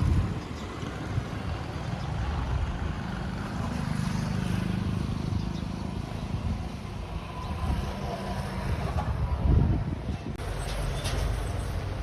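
Steady low rumble of passing road traffic, with one louder low thump about three-quarters of the way through.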